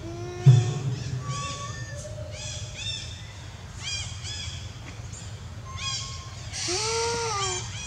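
Animal calls: a quick series of short, high, rising-and-falling chirps, with a longer arching call and a harsh squeal near the end. A sharp thump about half a second in is the loudest single sound.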